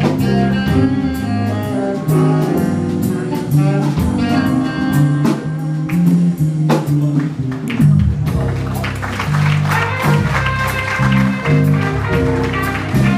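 Live jazz band playing: a steady bass line and drums with hand percussion under the keyboard, and a higher melody line coming in about nine seconds in.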